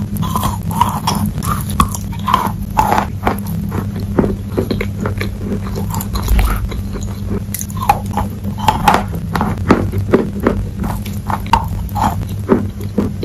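Wet sidewalk chalk being bitten and chewed: a dense run of wet crunches and crackles, over a steady low hum.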